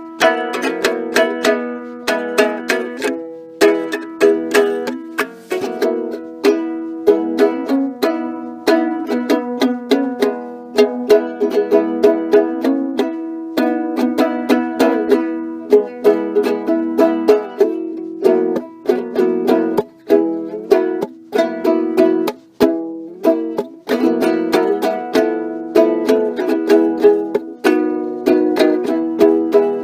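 Ukulele played without vocals, a quick, even run of plucked and strummed notes.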